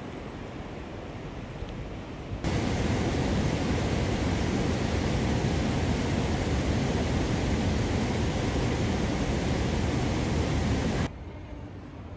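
Steady rush of river water pouring over a weir. It starts suddenly about two and a half seconds in and cuts off about a second before the end, with a fainter steady hiss before and after.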